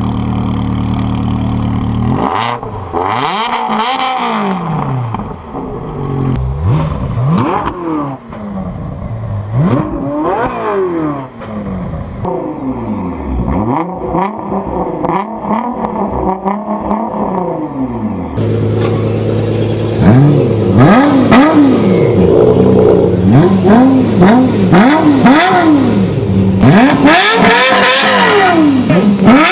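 Supercar engines revved again and again, each blip's pitch rising sharply and falling back. These are several separate clips, with an abrupt change about two seconds in and another around two-thirds through, after which the revving is louder and the blips come roughly a second apart.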